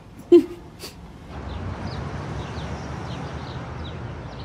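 A brief whimper-like sound, then from about a second and a half a steady low background noise with faint small birds chirping over it.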